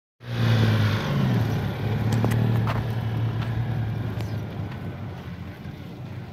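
Citroën 2CV's air-cooled flat-twin engine running as the car drives on dirt. Its steady note wavers briefly about a second in, then it fades as the car pulls away, with a few sharp clicks between two and three seconds in.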